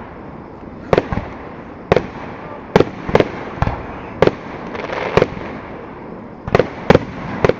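Aerial fireworks display going off about a quarter mile away: about ten sharp booms at irregular intervals, some in quick pairs, with a brief spell of crackling near the middle.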